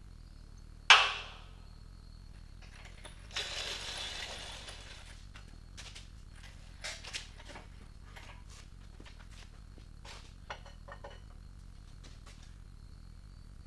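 Metal parts and tools being handled: one sharp, loud clank about a second in, a rattling scrape a few seconds later, then scattered light clinks and taps.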